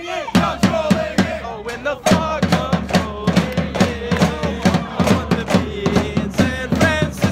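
Soccer supporters' section chanting together in song over a steady, pounding drumbeat.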